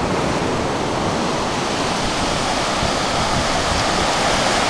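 Ocean surf breaking on the beach: a steady rushing wash of noise, with some wind rumbling on the microphone.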